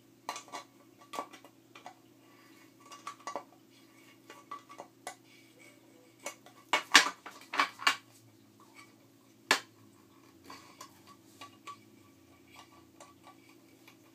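Pliers clinking and scraping against a nut and the aluminium housing of an LED flood light as the nut is tightened: scattered sharp metal clicks and taps, the loudest cluster about seven to eight seconds in and another single sharp click a couple of seconds later.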